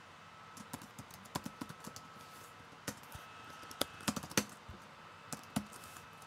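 Typing on a computer keyboard: irregular key clicks in short runs, the busiest and loudest stretch about four seconds in.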